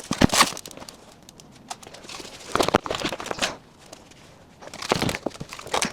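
Three bouts of crinkling and scraping with sharp knocks, separated by quieter pauses, as the heavy drill press and its packaging are handled.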